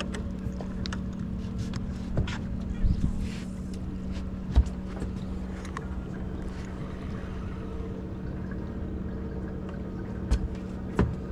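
Steady low mechanical hum aboard a fishing boat, with a few sharp knocks and thumps scattered through it, the loudest about four and a half seconds in and again near the end.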